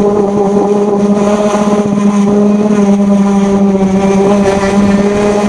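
Handheld orbital sander running against a car door's painted metal panel, a steady high motor hum with a rough sanding hiss over it.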